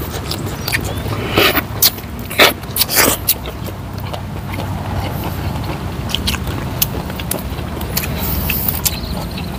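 Mouth sounds of eating by hand close to the microphone: wet chewing and lip smacks, heard as a run of sharp clicks that is thickest about one and a half to three seconds in and then thins out.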